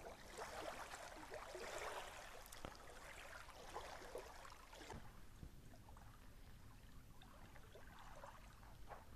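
Faint lapping of small waves on a pebbly lake shore, a little quieter after about five seconds.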